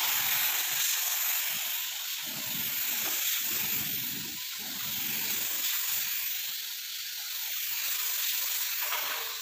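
Compressed-air gravity-feed paint spray gun spraying white paint onto a car bonnet, a steady hiss that swells and eases slightly as the gun sweeps back and forth.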